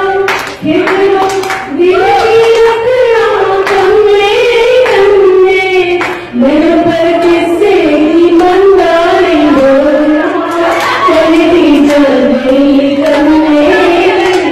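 A woman singing solo into a microphone, a slow melody of long held, gliding notes with short breaths between phrases.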